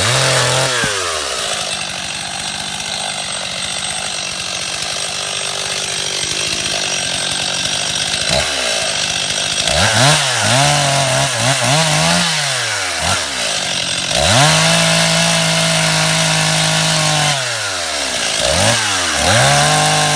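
Petrol chainsaw cutting a tree: the engine drops to a low run for the first several seconds, then revs up and falls back again and again, held at full revs for about three seconds once.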